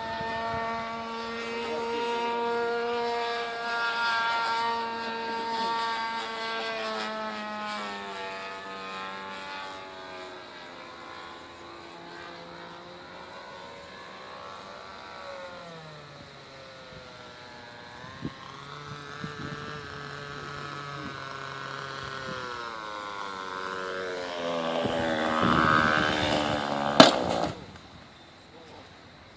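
Great Planes Dazzler RC model airplane's engine droning in flight, its pitch sliding up and down as the plane passes and the throttle changes. Near the end it grows louder, then there is a sharp thump as the plane comes down, and the engine sound stops.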